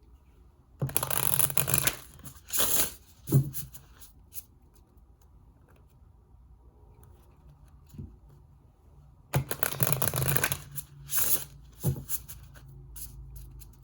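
A deck of cards being shuffled by hand: two main bursts of shuffling about a second long, one near the start and one past the middle. Each is followed by shorter rustles and a few light taps as the deck is squared.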